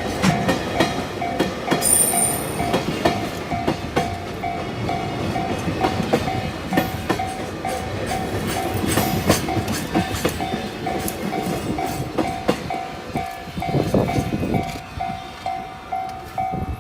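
Japanese level-crossing alarm ringing in a steady repeating ding, over the clatter of a container freight train's wheels passing over the rail joints. Near the end the wheel noise dies away and the crossing bell keeps ringing.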